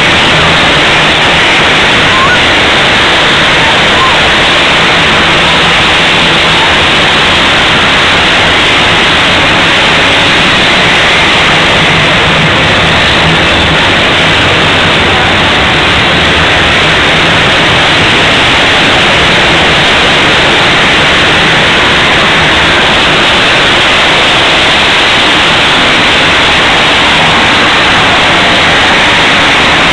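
Racing ATV engines running around an indoor stadium arena, blended with crowd noise into a loud, steady wash.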